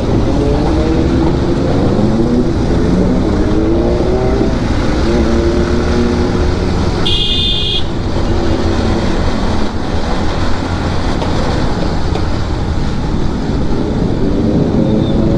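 Motorcycle engine running under way, its pitch rising and falling, over heavy wind and road rush. A horn sounds briefly about seven seconds in.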